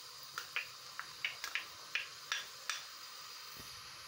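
Chopped onion frying in hot oil in a stainless steel pot: a soft, steady sizzle with scattered crackles and pops over the first three seconds, then just the sizzle.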